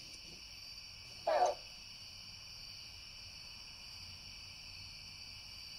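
Steady, high-pitched chorus of night insects, with one short, louder sound about a second and a half in.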